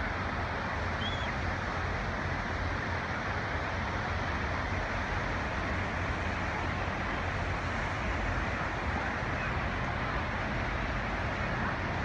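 Steady roar of ocean surf breaking on a sandy beach, with a low rumble of wind on the microphone.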